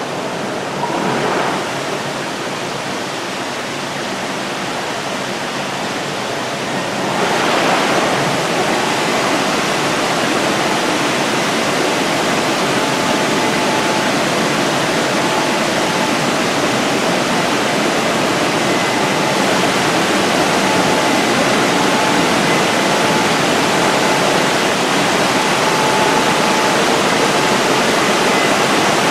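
WashTec rollover car wash's dryer blowers running, a loud steady rush of air that gets louder about seven seconds in, with a faint whine.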